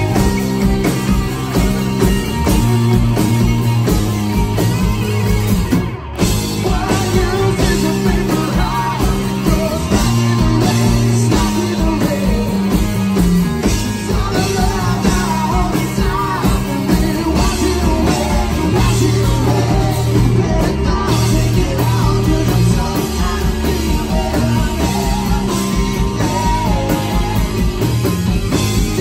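Live rock band playing: electric guitar, bass guitar and drum kit, with a man singing lead. The music breaks off for a moment about six seconds in.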